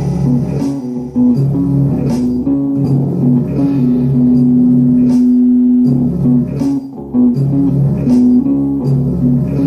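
A guitar playing a riff of single low plucked notes that step up and down in pitch, with one note held for about a second near the middle.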